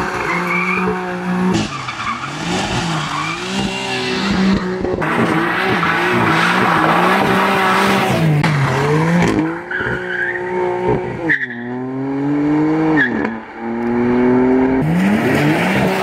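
BMW M4's twin-turbo straight-six revved hard, its note repeatedly rising and falling, with several steep rising runs in the second half, while the rear tyres squeal and scrub as the car slides sideways in a drift.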